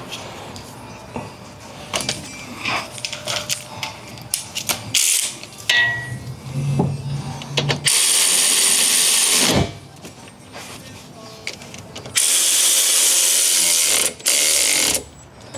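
Toyota Camry brake caliper bolts being tightened: several seconds of scattered tool clicks and knocks, then a power tool runs twice, each run steady and about two seconds long.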